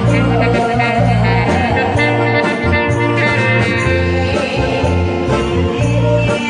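Song accompaniment with a steady bass line and sustained backing instruments, with singing at times.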